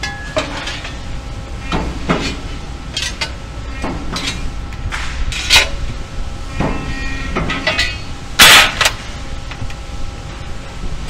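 Sheet-metal parts being worked on a Cincinnati press brake: repeated sharp metallic clanks and rattles as the steel blanks are set against the tooling, bent and handled, over a steady low machine hum. A louder, longer metallic clash comes about eight and a half seconds in.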